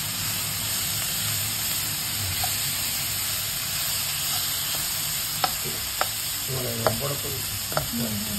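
Shimeji mushrooms, onion and chilies sizzling in hot oil in a non-stick wok as a spatula stirs them; the mushrooms' water has cooked off and they are frying in oil. About four sharp clicks of the spatula against the pan come in the second half.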